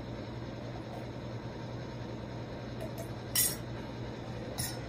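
A person drinking from a ceramic mug over a steady low room hum, with two short sounds of the sip and mug about three and a half and four and a half seconds in.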